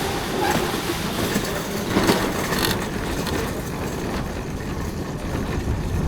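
A loaded shopping cart rattling and rumbling steadily as it is pushed along on its wheels.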